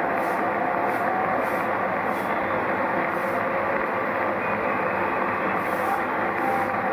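Cricket stadium crowd giving a standing ovation: sustained, steady applause and cheering for a batsman's century.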